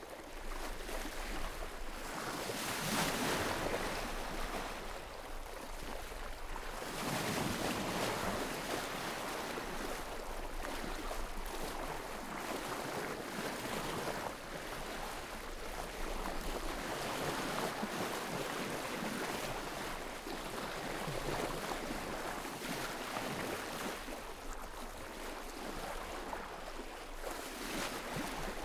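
Sea waves washing in, an even rushing surf that swells and ebbs every few seconds.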